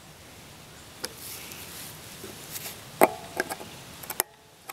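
Tools and an old floor-mounted headlight dimmer switch being handled on a bench: a scattering of small clicks and clinks. The loudest is a clink about three seconds in, with a brief metallic ring, followed by several quicker small clicks.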